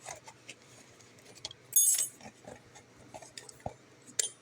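A bunch of metal keys clinking and jangling as they are handled, with a sharp louder clink about two seconds in and another near the end.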